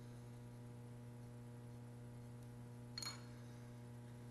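Steady low electrical hum, with one short sharp click and a brief metallic ring about three seconds in as a ballpoint pen and copper TIG collet are handled.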